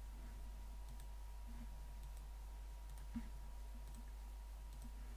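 A few faint computer mouse clicks over a steady low electrical hum and a faint steady tone; the loudest click comes about three seconds in.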